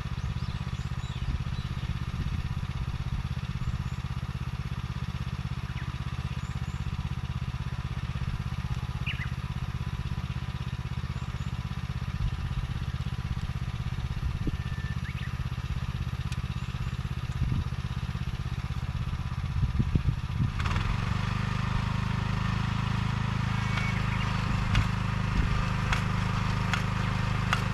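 Small engine of a vegetable transplanter running steadily. A few knocks come about three quarters of the way through, after which the engine note shifts and a brighter mechanical clatter grows louder.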